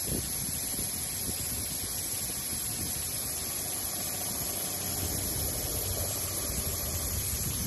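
Sanding machine running, its abrasive working steadily over the surface of aluminum cookware: an even, unbroken hiss over a low rumble.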